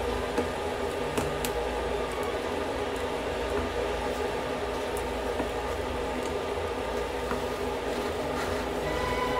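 Steady sizzling with a few scattered faint crackles: a red-hot steel ball searing boiled eggs.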